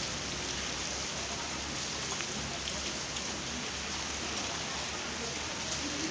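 Heavy rain pouring down and pattering on hard surfaces, a steady dense hiss with scattered drop ticks.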